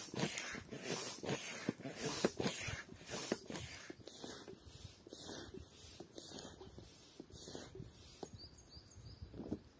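Hand air pump inflating an inflatable tent: quick rhythmic whooshing strokes, about three a second, growing fainter after about four seconds. A few short high chirps near the end.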